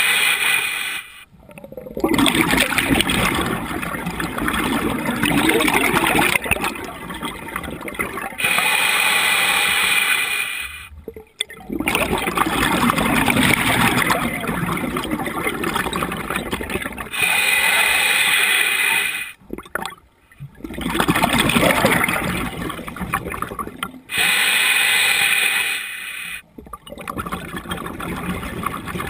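Scuba diver breathing underwater through a regulator: a short hissing inhale every seven to eight seconds, each followed by several seconds of gurgling exhaled bubbles. Four full breaths.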